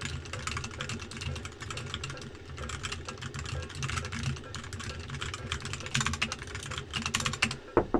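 Computer keyboard typing, with a steady low buzz underneath from a phone vibrating; the buzz cuts off near the end as the call is answered.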